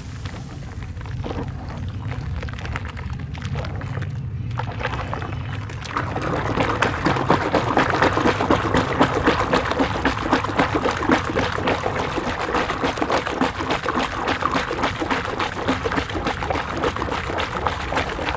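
Hands squishing and sloshing crumbled dirt through foamy water in a tub: a wet squelching and splashing. It grows busier and louder about six seconds in, with rapid crackling.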